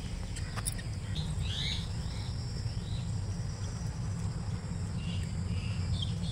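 Birds chirping a few times, mostly between one and three seconds in, over a steady high insect drone and a low background rumble.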